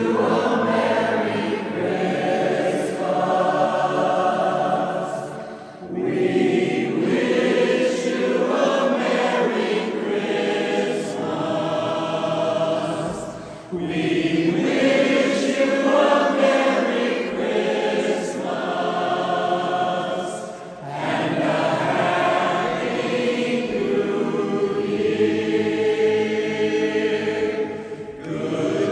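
A barbershop chorus singing sustained close-harmony chords in long phrases, with short breaths between phrases about every seven seconds.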